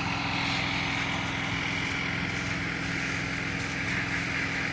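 Fire engine's motor running at a steady speed, driving its water pump to feed a hose line, with a steady hiss above the engine note.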